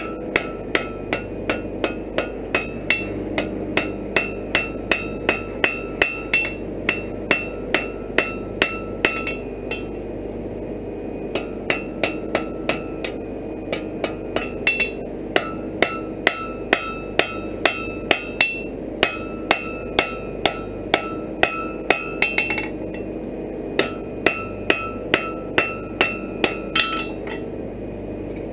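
Hand hammer striking a red-hot iron bar on an anvil, about two to three blows a second, each with a bright metallic ring from the anvil, forging a fire poker. The blows come in runs broken by short pauses.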